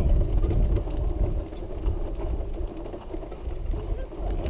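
Wheelchair rolling along an outdoor path: a steady low rumble from the wheels, with wind buffeting the microphone.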